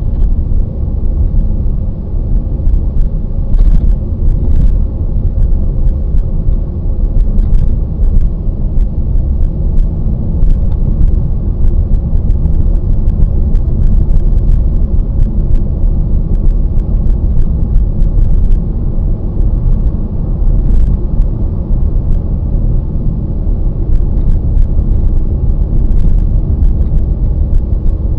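Steady low rumble of a Skoda Octavia A7 cruising at about 65–70 km/h on a snow-covered road: tyre and engine noise heard from inside the cabin, with faint scattered ticks.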